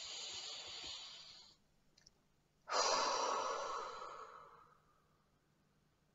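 A woman taking a slow, deep breath close to the microphone: a long hissing inhale, a pause of about a second, then a louder, breathy exhale that trails off.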